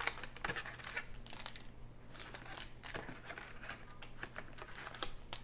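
Foil wrappers of Skybox basketball card packs crinkling as they are handled, in faint, irregular crackles and clicks over a steady low hum.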